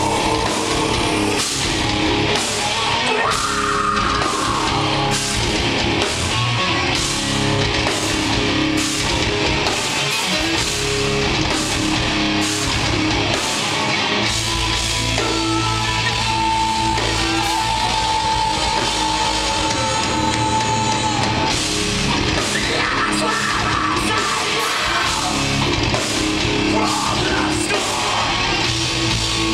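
Live rock band playing loudly on drums and electric guitars, with a long held high note about halfway through.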